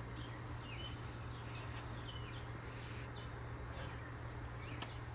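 Small birds chirping: short high calls that fall in pitch, repeating every half second or so, over a steady low hum. A single sharp click sounds near the end.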